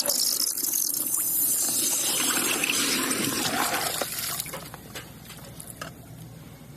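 Water rushing with a dense hiss, loud for about four seconds and then dying down to a weaker trickle.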